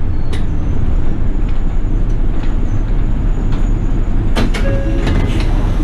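Toei city bus engine and road rumble heard from inside the cabin, steady and low, with a few sharp clicks about four and a half seconds in.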